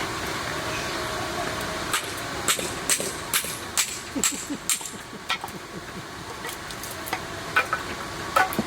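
Firewood being split by striking a blade into a log: a run of sharp knocks, about two a second for a few seconds, then two more near the end.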